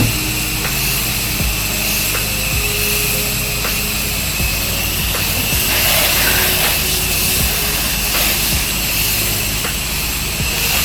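Pressure washer engine running steadily while the wand sprays soap mix through a downstream injector, a continuous hiss of spray over the engine hum, with faint regular ticks about every three-quarters of a second.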